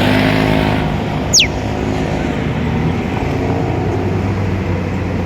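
A motor vehicle's engine running steadily close by, a low continuous hum. About a second and a half in, a single short high whistle slides quickly down in pitch.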